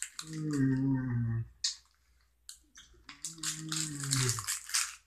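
A man's drawn-out groans, two of them each over a second long with the pitch sinking, and breathy hissing in between, as he struggles with very sour candy in his mouth.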